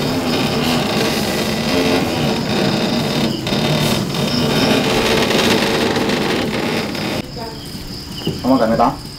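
Crickets chirping steadily behind indistinct background voices. The voices cut off abruptly about seven seconds in, leaving the crickets, and a brief loud wavering sound rises near the end.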